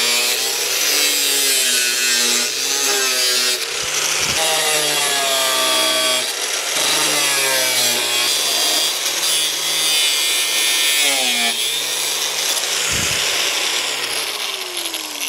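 Corded angle grinder cutting through steel sheet, its pitch sagging and recovering several times as the disc is pressed into the metal under load. Near the end the motor starts winding down.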